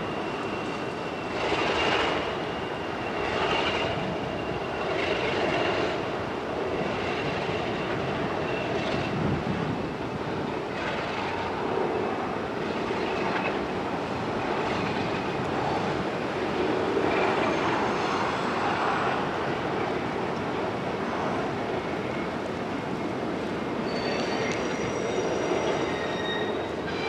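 Freight car wheels squealing on the rails as an Alco RS32 diesel locomotive pulls a hopper slowly through a switch, with a clunk of wheels over the rail joints about every second and a half at first. Thin high flange squeals come and go, growing stronger near the end.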